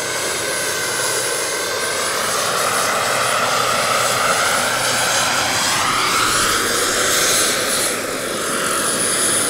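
Turbine-powered Vario SA-315B Lama scale model helicopter in flight: the high whine of its model gas turbine over the rotor noise, steady throughout, with the whine's pitch dipping and then rising partway through as the helicopter passes low.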